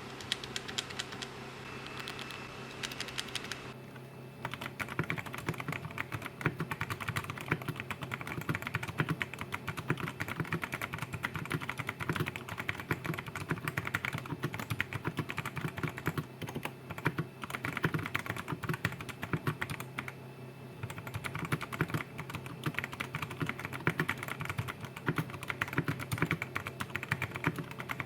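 Digital Alliance Meca 8s mechanical keyboard with Outemu switches being typed on fast and steadily after modding, with a couple of short lulls. The first few seconds hold only a low steady hum and a few faint clicks before the typing starts.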